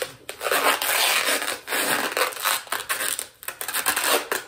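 Bubble wrap crinkling and rustling in irregular bursts as it is pressed and folded around a small package.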